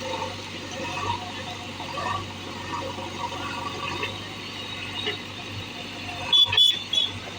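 JCB backhoe loader's diesel engine running steadily, with faint voices. Near the end comes a short burst of loud, sharp ringing knocks.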